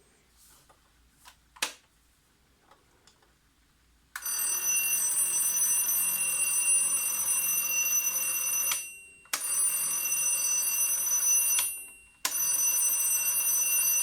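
Impex-Rhythm 7RA010 alarm clock's bell alarm ringing three times: one long ring of about four and a half seconds, then two shorter rings of about two seconds each with brief gaps between. A small click comes before the first ring.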